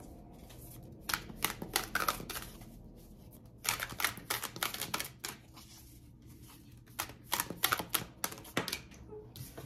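A deck of cards being shuffled by hand: three bursts of quick, papery flicking clicks, each lasting about a second and a half.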